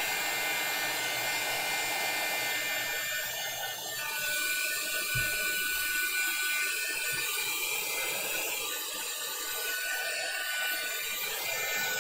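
Small handheld dryer running steadily, blowing air with a faint whine from its motor; the pitch of the whine shifts about four seconds in.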